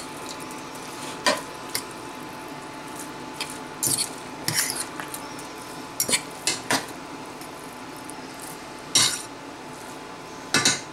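A utensil knocking and scraping against a pot as cooked fettuccine is tossed with peas and pancetta: scattered clinks about every second or two, the loudest about nine seconds in.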